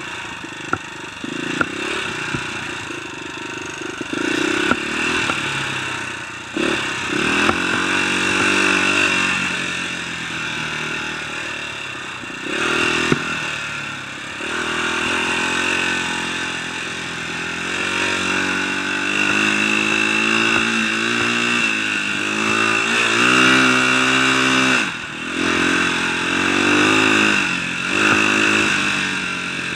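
Dirt bike engine being ridden, revving up and down as the throttle is worked, with the throttle lifted briefly a few times. A few sharp knocks stand out over the engine.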